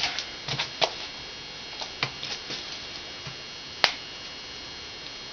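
Scattered light clicks and taps of hands handling a roll of tape on a workbench, with one sharper click about four seconds in.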